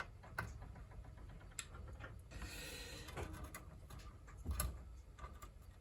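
Faint scattered clicks and taps of small tools and wires being handled while soldering a cable's joints, with a brief soft hiss about halfway through.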